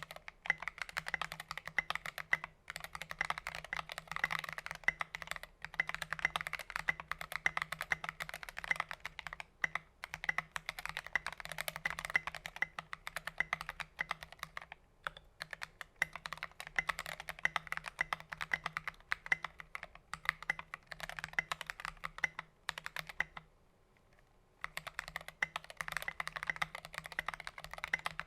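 Fast typing on a Keychron V1 mechanical keyboard with Akko Jelly Blue tactile switches and SA-profile keycaps, a deep-sounding run of keystrokes in bursts with brief pauses and a longer lull near the end.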